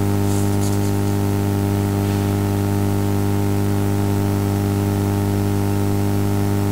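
Steady electrical hum with a stack of even overtones over a constant hiss. This is the recording's own background noise, with no other event standing out.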